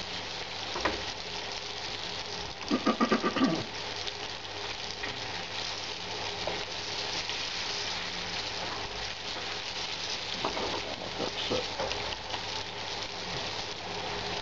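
Breaded beef pieces frying in shallow oil in a non-stick pan, with a steady sizzle and a few light clicks of metal tongs against the pan as the pieces are turned. About three seconds in, a short pulsing call of several quick beats, like a bleat, rises briefly over the sizzle.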